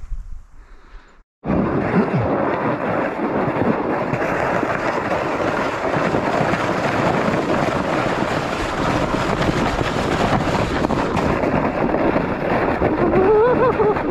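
Plastic sled sliding fast down a packed snowy slope: a loud, continuous scraping hiss over the snow, starting abruptly about a second and a half in, with a short wavering pitched sound near the end.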